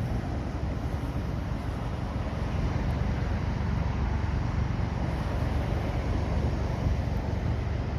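Boeing 777-300ER's GE90 jet engines giving a steady, low, even roar, mixed with wind buffeting the microphone.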